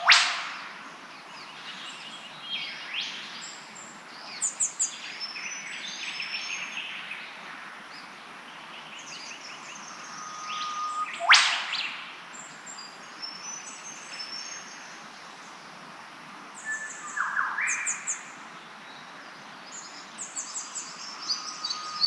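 Mixed birdsong of many short chirps and whistles. A loud, sharp sweeping call comes at the start and another about eleven seconds in.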